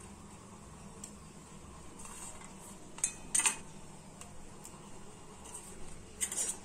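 Curry leaves being plucked off their stems onto a stainless steel plate: a few light clicks and scrapes of fingers and leaves against the steel, about three seconds in and again near the end.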